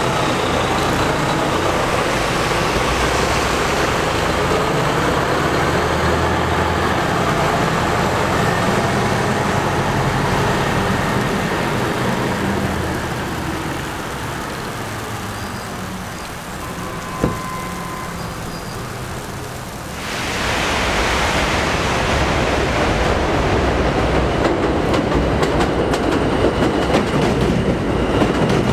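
An RTS transit bus's diesel engine running as it pulls away on a slushy street, with traffic around it. About 20 seconds in, this gives way abruptly to an R160A subway train running past on elevated track, its wheels clattering, growing louder toward the end.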